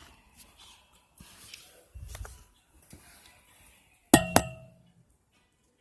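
Quiet handling and rustling, then two sharp ringing clinks about a quarter second apart, like kitchenware struck together while mixing.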